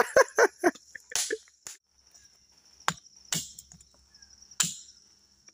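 Machete chopping a husked coconut open: about five sharp blows at uneven intervals, over a steady high buzz of insects.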